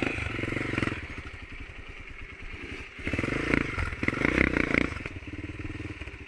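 Motorcycle engine running, revving up in two bursts: briefly at the start and again from about three to five seconds in, dropping back to a lower run in between.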